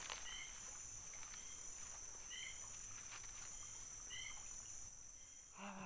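Steady, high-pitched chorus of insects, such as crickets or cicadas, in tropical riverside forest. A bird's short two-note call repeats about every two seconds, and a man's voice begins at the very end.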